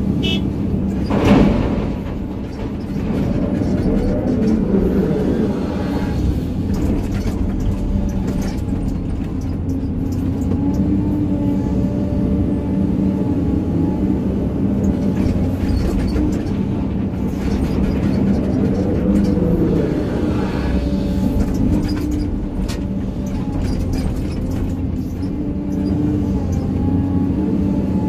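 Excavator's diesel engine running steadily under load, its pitch rising and falling a couple of times as the hydraulics work, with scattered knocks of the bucket and stones and one sharp knock about a second in.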